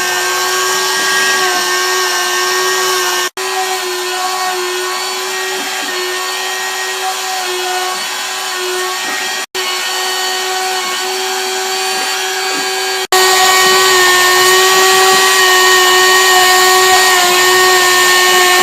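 A Stepcraft 600 CNC machine's spindle runs at speed with a steady high whine while it drills through-holes in a PCB. The sound cuts out for an instant three times and is louder and fuller from about 13 seconds in.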